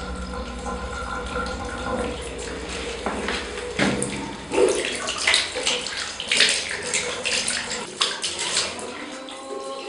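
Water running from a tap into a sink, with irregular splashing from about three seconds in as hands scoop the water up to a face, easing off near the end.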